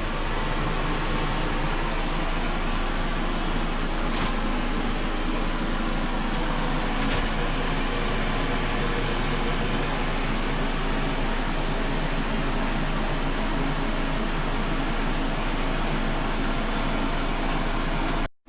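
Steady motor-driven air noise, an even hiss over a low hum, like a running blower. It cuts off abruptly for a moment just before the end.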